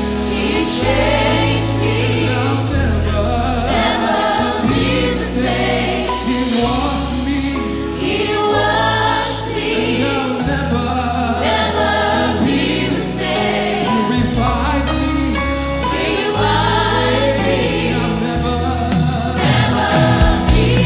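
Church choir singing a gospel worship song with instrumental accompaniment, a held bass note under the voices changing every couple of seconds.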